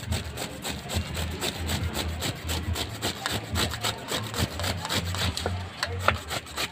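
Green papaya being grated by hand on a small metal grater over a stainless steel bowl: a quick, steady run of rasping scrape strokes.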